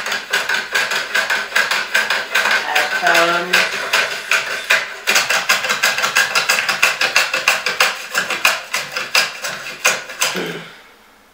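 Loud, rapid crackling and clicking from a microphone being handled and set up. It stops about ten seconds in.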